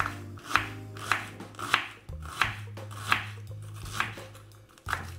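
Kitchen knife chopping an onion on a wooden cutting board: about eight separate strokes, roughly one every two-thirds of a second.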